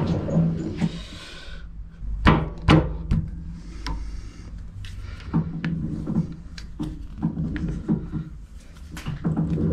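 A metal lathe winds down at the start. Then come sharp metallic clicks and knocks, two louder ones about two and a half seconds in, as a chuck key is fitted and turned in the lathe chuck and the chuck is turned by hand, over a low steady hum.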